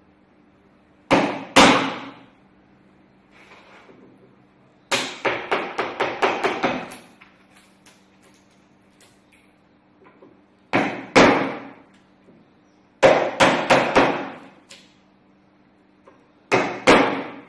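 Wood chisel being struck to chop out the waste of a halving joint in softwood: groups of sharp knocks, two near the start, a quick run of about eight a few seconds in, then more short groups, each striking the blade deeper into the wood.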